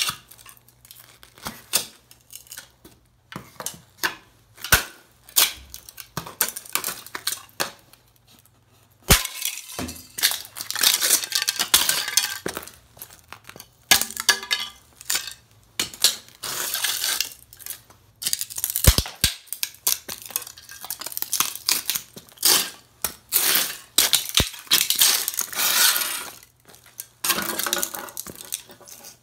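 Heavy leather boots with spurs stomping and grinding the debris of a smashed tube radio on a concrete floor: irregular crunches, scrapes and metallic clinks of plastic, wood and metal pieces, with a brief lull about eight seconds in.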